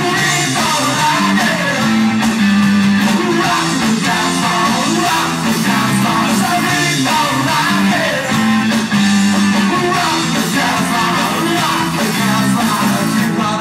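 Live rock band playing, with distorted electric guitars, bass guitar and drums under a singer's voice.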